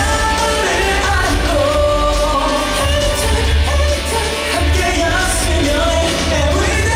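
Male pop singer singing into a handheld microphone over pop backing music with a pulsing bass beat.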